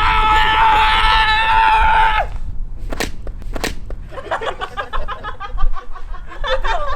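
A held, pitched electronic tone stops about two seconds in, then two sharp cracks about half a second apart, like an axe striking a log, followed by people chattering.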